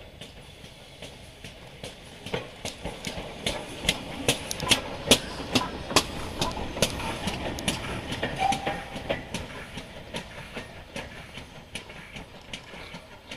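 A steam-hauled train passing, its wheels clicking sharply over the rail joints, growing louder to a peak a few seconds in and then fading away.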